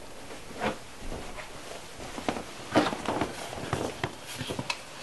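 Footsteps and handling noises: a scatter of light knocks and clicks at uneven intervals, as someone moves about off-camera.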